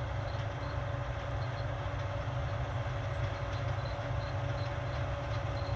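Combine harvester running steadily: a low engine drone with a steady thin whine over it and faint, evenly spaced ticking.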